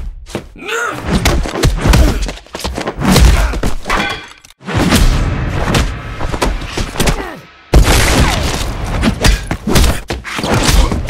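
Movie fight sound effects: a dense run of punches, body blows, heavy thuds and crashes, over a music score. The sound drops away briefly twice, about four and a half seconds in and again around seven and a half seconds in.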